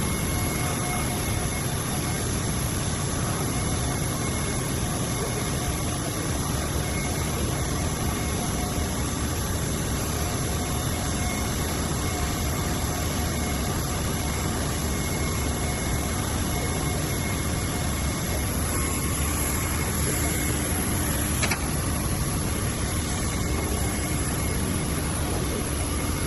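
Steady machine running noise with a constant hiss, and a single short click about 21 seconds in.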